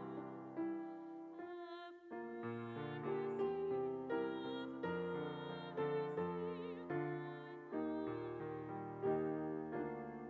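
Slow instrumental piano music: chords struck about once a second and left to ring and fade.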